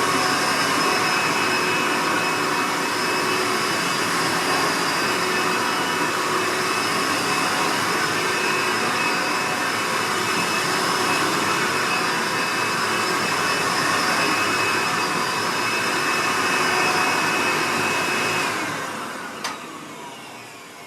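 Hoover Legacy Supreme upright vacuum's direct-air motor running steadily with a high whine, and no belt fitted, so the brushroll is not turning. Near the end it is switched off and spins down, its whine falling in pitch, with a single click as it slows.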